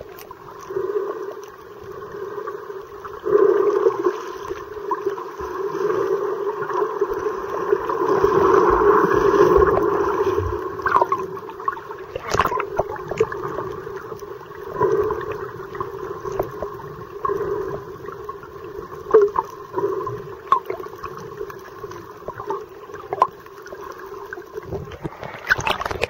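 Underwater sound through a camera's waterproof housing: a muffled rush of water with a steady drone and scattered bubbly clicks and pops. Just before the end the camera breaks the surface with a short splash.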